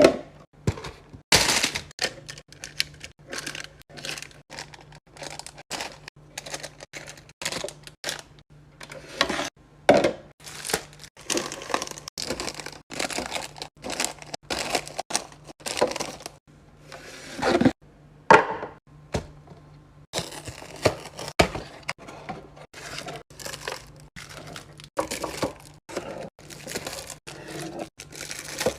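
Food packaging and plastic or glass containers being handled and set down while a fridge is restocked: a busy run of sharp clicks, taps and knocks mixed with crinkling and rustling.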